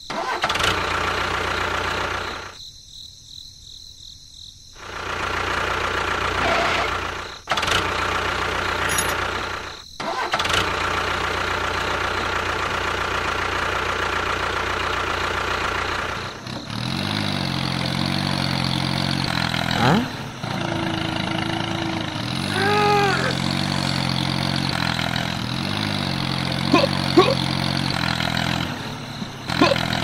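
Small machine motors running steadily in several short stretches, broken by abrupt cuts. The last long stretch is a lower, even, engine-like hum.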